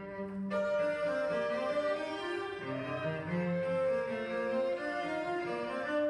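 Music of bowed strings, violin and cello, playing long held notes, with higher parts coming in about half a second in.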